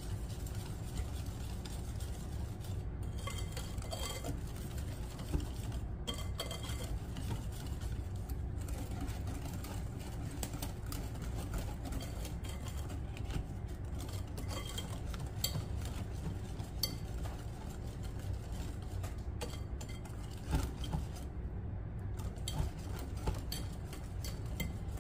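Wire whisk beating wet cake batter in a glass bowl: a steady stirring swish with many light clinks and taps of the wire against the glass, over a low steady hum.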